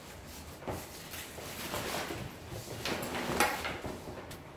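Rustling and scuffing of a Kriega R30 backpack's fabric as a couch pillow is pushed into it, with a sharper knock about three and a half seconds in.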